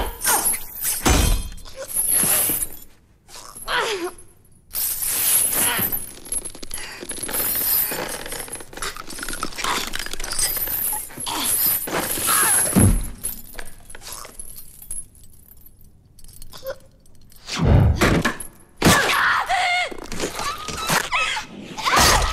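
Movie fight sound effects: a chain weapon with a heavy ball whipping and clinking, with repeated heavy blows and things shattering, and shouts and grunts between them.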